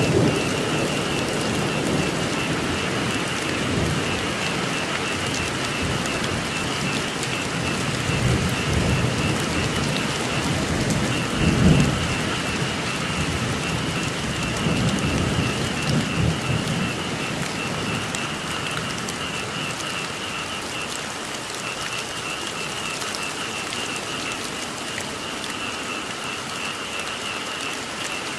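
Steady rain with low rolls of thunder, the loudest about twelve seconds in, dying away in the second half. Under the rain a chorus of frogs keeps up a steady, high, pulsing call.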